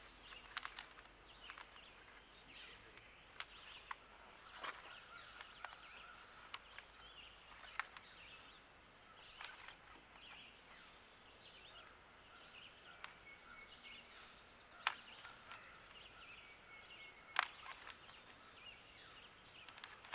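Quiet outdoor background with faint high chirping and scattered sharp clicks and taps, two of them louder in the second half.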